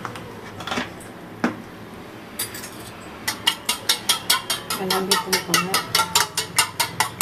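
A spoon beating raw eggs in a small stainless steel bowl: quick, even metal clinks about four or five a second, starting about three seconds in. A couple of single knocks come before it.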